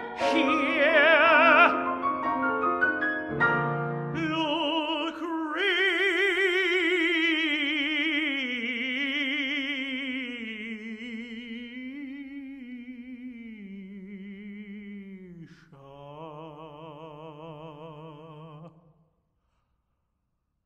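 Tenor voice with piano accompaniment closing an opera aria: quick piano runs, then long sung notes with vibrato stepping gradually lower, ending on a low held note that stops shortly before the end.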